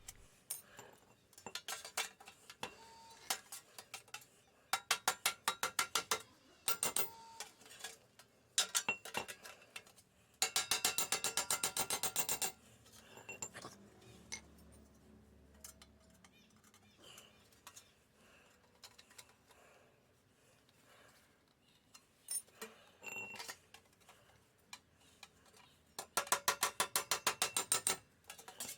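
Hammer blows on sheet metal held over a solid steel round bar: rapid runs of ringing metallic strikes, with pauses and a few single knocks between them, as the puckered edges are flattened down.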